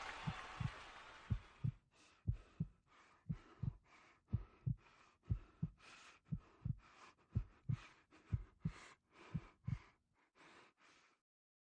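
A heartbeat sound effect: paired low thumps, about one beat a second, each with a faint hiss, under a wash of noise that fades away in the first two seconds. The beats stop about eleven seconds in.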